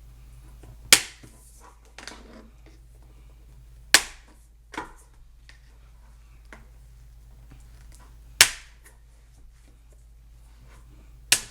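Plastic speaker-mounting brackets in a car door panel being cut with clippers: four loud, sharp snaps spaced a few seconds apart, with a few smaller clicks between them.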